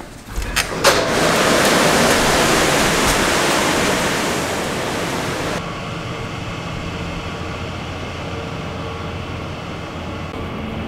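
A couple of clicks, then a loud, steady rush of air noise that cuts off abruptly about halfway through, giving way to a quieter steady outdoor city hum with a faint constant tone.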